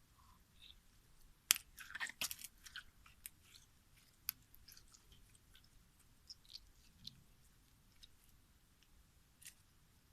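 Clear slime being mixed, giving off sticky clicks and small pops. The pops come in a quick flurry from about one and a half seconds in, then thin out to scattered single clicks.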